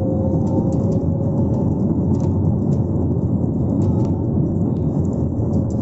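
Airbus A320neo jet engine heard inside the passenger cabin, running with a steady rumble and a held whine as the plane rolls along the runway. A few faint ticks come and go over it.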